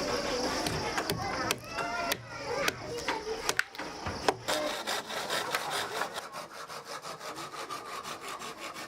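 Wood being sawn by hand: a fast, even run of rasping strokes, about five a second, settling in after scattered knocks in the first few seconds.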